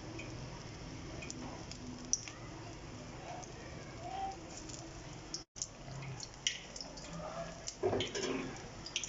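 Battered green chillies deep-frying in hot oil in a wok: a steady sizzle with scattered crackles and pops, busier near the end.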